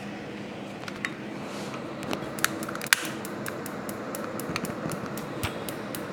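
A utensil stirring and tossing spaghetti in a pan, with scattered light clicks and taps of metal against the pan over a steady background hum.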